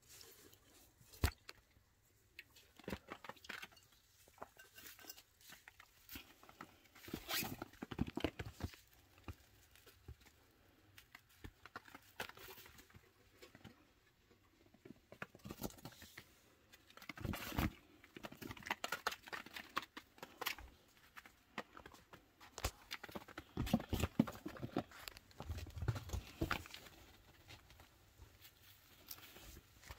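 Pet chinchilla moving about a fabric-floored playpen: scattered patters, scratches and rustles, coming in bunches several times.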